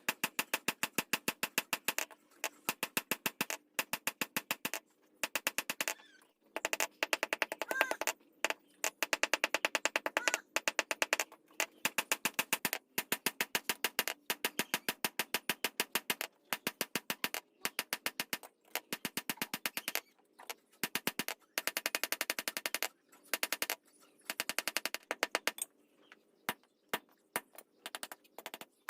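Blacksmith's hammer striking metal in fast runs of blows, several a second, with short pauses between runs and a metallic ring under the strikes.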